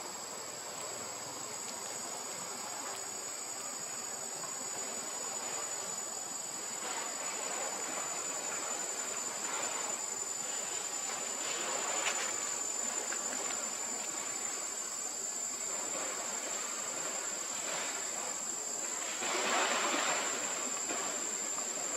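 Insects droning at one steady high pitch, with a couple of brief louder noises about halfway through and near the end.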